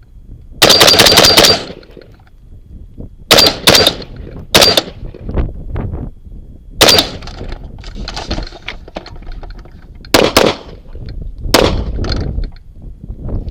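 Rifle gunfire: a fast string of shots lasting about a second, then shots in quick pairs and singles spread over the next ten seconds, with clatter between them.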